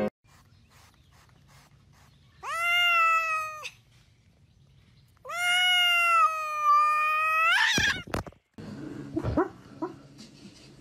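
Grey tabby cat meowing twice: one drawn-out call of just over a second, then a longer one of about two and a half seconds that rises in pitch at its end.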